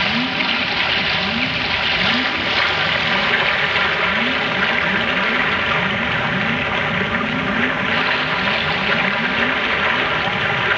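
A steady rushing, water-like noise with a held droning chord over it, and a low rising chirp that repeats, sparse at first and about twice a second from a few seconds in.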